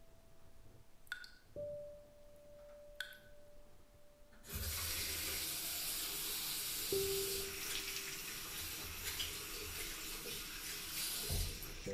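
A few sharp clicks, then a bathroom faucet running into the sink from about four and a half seconds in. The water splashes over cupped hands and stops just before the end.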